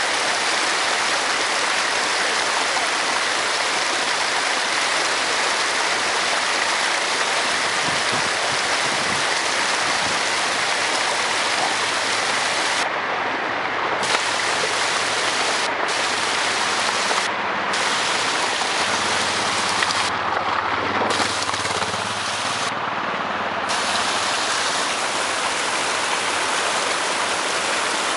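Steady rushing hiss of heavy rain and water running over the rocks of a stream bed.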